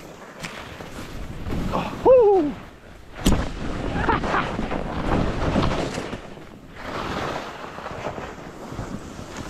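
Skis sliding and scraping over chopped-up snow on a steep glade run, a rushing noise that swells and fades with each turn, mixed with wind on the microphone. About two seconds in a short falling-pitched sound rings out, and a little after three seconds there is a sharp knock.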